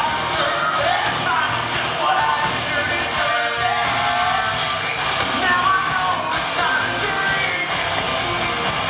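Live rock band with a male lead vocalist singing into a handheld microphone, heard from within the audience.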